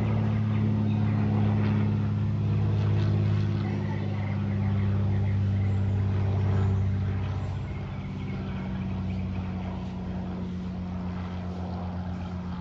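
Propeller-driven light aircraft flying overhead: a steady, pitched propeller drone that eases off a little about halfway through.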